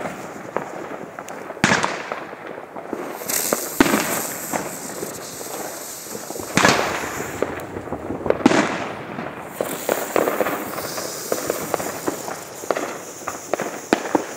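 Fireworks going off: several sharp bangs a couple of seconds apart, each with an echoing tail, then a run of many smaller crackling pops toward the end.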